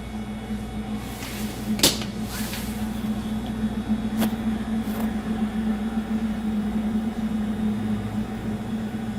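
A steady low electrical or mechanical hum, with a sharp click a little under two seconds in and two fainter clicks around four and five seconds.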